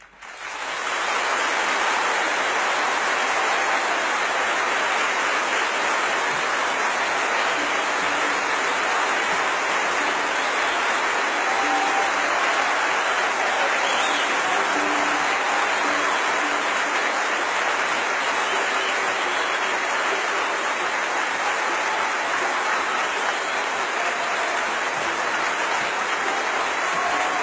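Steady, even rushing water sound that fades in over the first second or two and then holds, with a few faint tones coming and going in the second half.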